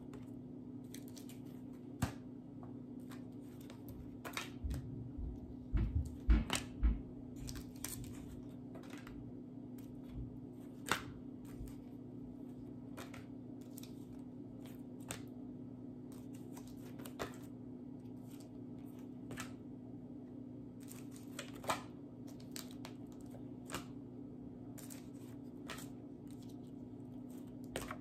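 Stiff paper flashcards being handled and swapped, a light click or rustle about every two seconds, over a steady low hum. A cluster of louder thumps comes about five to seven seconds in.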